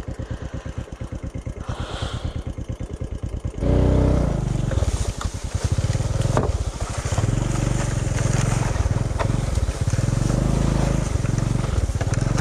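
A small motorcycle engine idles with an even, quick putter. About three and a half seconds in, it revs up sharply as the bike pulls away, then keeps running under load with the throttle rising and falling over rough ground, with a few sharp clicks along the way.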